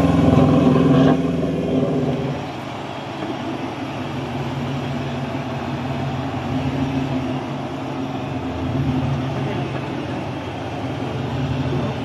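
Off-road 4x4 engine revving hard, then dropping back in two steps about one and two seconds in, to run steadily at lower revs with a couple of slight rises.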